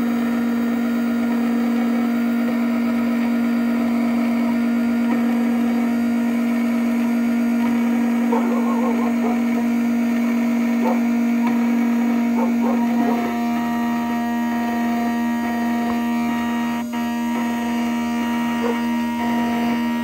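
Black Widow key-cutting machine's spindle motor running with a steady hum while its cutter mills a brass key blank. The sound changes about thirteen seconds in.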